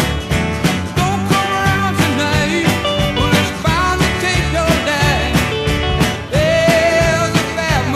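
Rock song on the soundtrack: a sung vocal over a steady drum beat.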